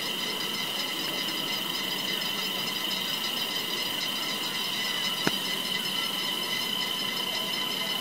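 Cicadas singing together in a steady high-pitched buzz, with a single sharp click about five seconds in.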